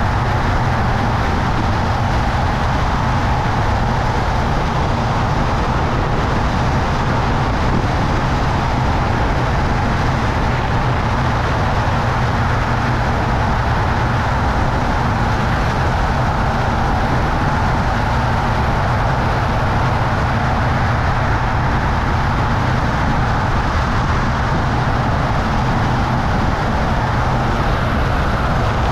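Steady, loud rush of wind over the jumper's camera microphone in wingsuit flight at speed, even and unbroken throughout.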